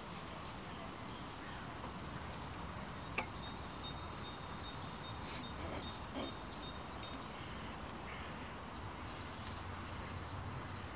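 Outdoor park ambience: a steady low background hiss with faint high bird calls. There is a single sharp click about three seconds in.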